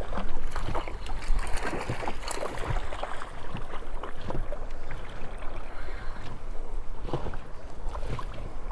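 Water splashing and lapping, with many small irregular splashes and clicks.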